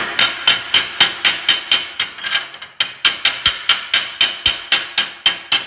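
Chipping hammer striking a stick-weld bead on steel plate, knocking off the slag: quick, sharp metallic blows about four a second, with a brief pause about two and a half seconds in.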